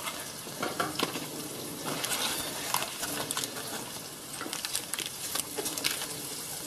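Pancetta frying in oil in a pan, a steady sizzle with many small crackles and pops.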